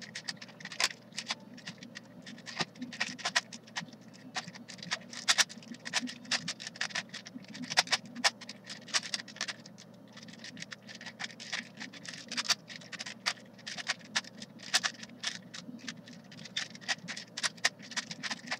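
Rubik's brand 4x4 cube being turned by hand through a scramble: a long run of irregular plastic clicks and scrapes as its layers are twisted, several turns a second with short pauses.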